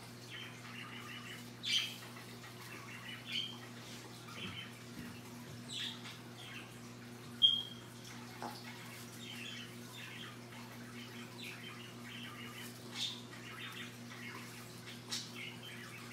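Scarlet macaw making soft, quiet chattering sounds, broken by a few short sharp squeaks; the loudest is a brief high chirp about seven seconds in. A steady low hum runs underneath.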